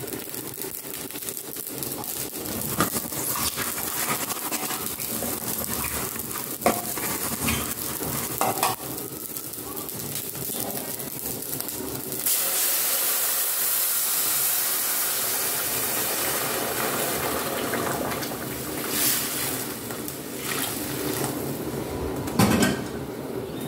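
Rice sizzling and crackling as it toasts in oil in a pan, with a few clicks. About twelve seconds in, hot water is poured into the hot pan and it breaks into a loud hiss that eases off over several seconds. A clank near the end.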